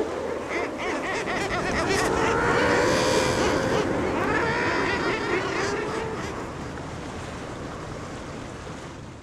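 A crowded colony of common guillemots calling over waves breaking on the rocks, a dense chorus of overlapping calls. It fades away over the second half.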